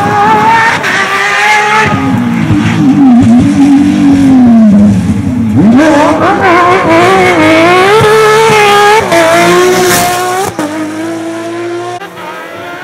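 Porsche 997 GT3 rally car's flat-six engine revving hard, its pitch falling and climbing again and again through gear changes and braking. The sound drops away over the last couple of seconds.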